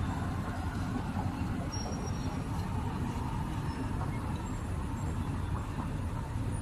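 Steady low rumble of city street traffic with no single vehicle standing out.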